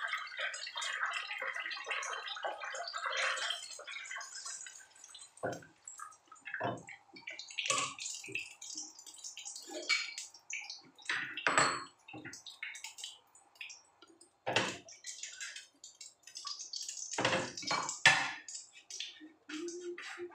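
Oil sizzling and crackling in a frying pan as food is turned, for the first few seconds. Then scattered clinks and knocks of utensils, pans and dishes.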